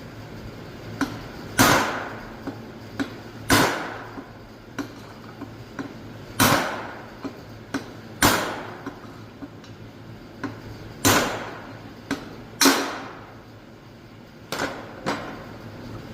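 Hammer blows on a steel drift, driving bearing races out of a Toyota Celica differential housing: about six hard, ringing metal strikes a second or more apart, with lighter taps in between.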